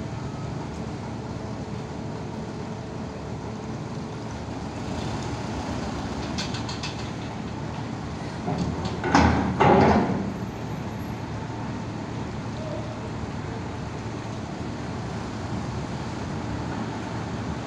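Loaded diesel truck driving slowly up a ferry's steel loading ramp: a steady low engine rumble, with two loud clanks about nine seconds in as the steel ramp plates take its wheels.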